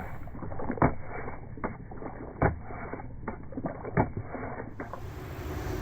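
A few short clicks and knocks, about four, over a steady low background noise.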